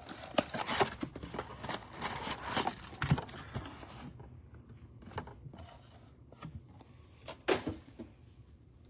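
Trading cards and foil pack wrappers being handled: quick rustling, crinkling and light clicks, busy in the first half, then sparser, with one louder crackle near the end.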